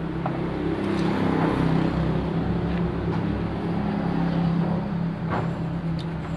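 Yamaha 15 hp two-stroke outboard engine running at a steady speed. It gets louder over the first second and a half, then holds.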